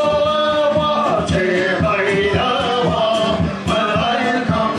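Live folk band playing a Scottish song: male voices singing over acoustic guitar, with a bodhrán beating a steady rhythm.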